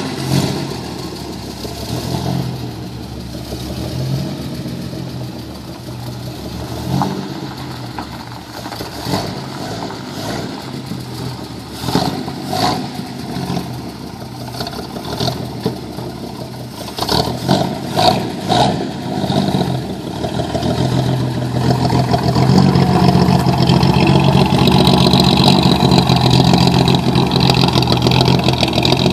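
1951 GMC pickup's engine running as the truck is driven, with a few sharp spikes partway through. It grows louder and steadier about two-thirds of the way in as the truck comes close.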